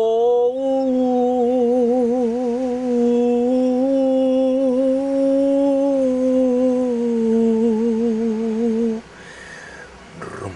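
A person humming one long held note for about nine seconds, wavering in pitch with short bursts of vibrato and dipping slightly lower near the end before stopping.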